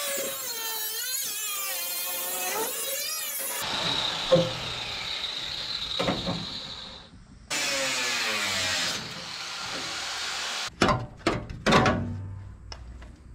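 Angle grinder with a cut-off wheel slicing through the sheet-steel wheel well of a Nissan 240SX. Its whine wavers as the wheel bites the metal and winds down before a second cutting pass about halfway through. Near the end come a few sharp metal clanks as the cut piece is pulled away.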